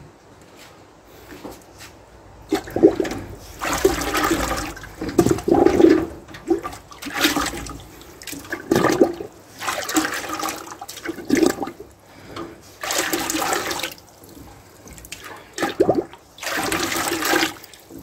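A crucible being dunked into a metal bucket of runny calcium carbonate slurry and lifted out again. The slurry sloshes and pours back off it into the bucket in about six splashy bursts, a few seconds apart.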